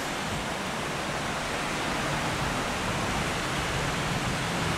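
Steady rushing hiss of a fast alpine river running over whitewater rapids, growing slightly louder toward the end.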